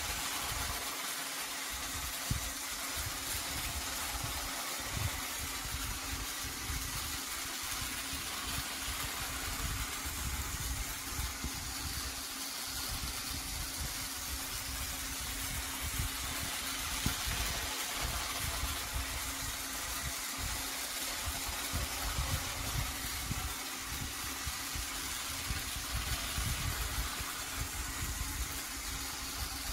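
Battery-powered Trackmaster toy train's small electric motor running steadily along plastic track, with a constant hum.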